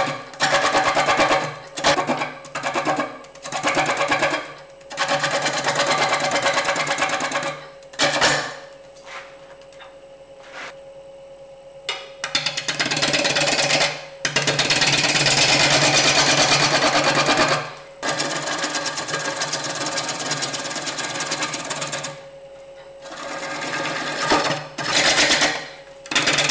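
A 3/4-inch bowl gouge, held in a scraping position, cutting the outside of a spinning natural-edge bowl blank on a Robust wood lathe: a rough, rapidly pulsing scrape in repeated passes of one to four seconds. In the short pauses between passes only the lathe's quiet running hum and a faint whine remain.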